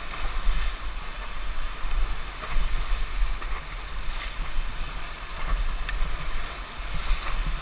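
Whitewater rapids rushing and churning around a raft, a steady hiss of water. Wind buffets the microphone in an uneven low rumble.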